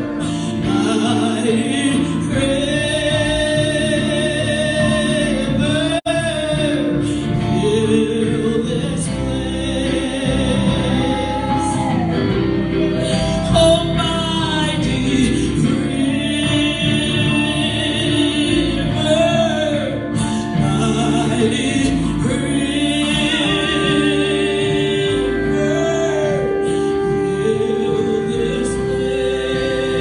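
A woman singing a gospel song into a microphone, accompanied by electric guitar through an amplifier. A long steady held note comes in about two-thirds of the way through.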